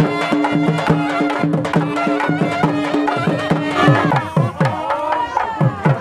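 Loud folk-style music with drums. Steady held tones carry over a beat, then from about four seconds in a quick run of falling, drum-like pitch sweeps takes over.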